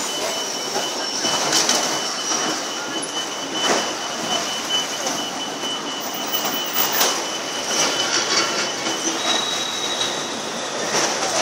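Steady street noise of city traffic, with a thin, steady high whine and a few short knocks.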